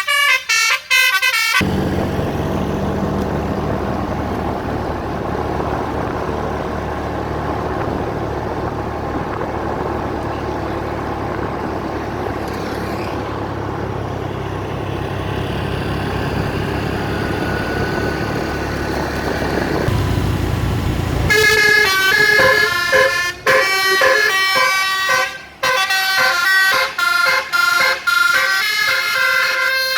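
A tour bus's telolet basuri musical horn playing a tune of quick stepped tones, which stops about two seconds in. About twenty seconds of steady engine and road noise follow. Then the horn plays again in short melodic phrases with brief breaks.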